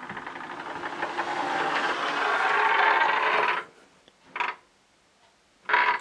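A door creaking open: a long rasping creak that swells louder for about three and a half seconds and stops abruptly, followed by two short bursts of sound near the end.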